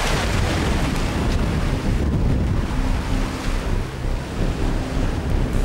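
Wind of up to 20 knots blowing across the microphone, with waves and water rushing past a sailing yacht.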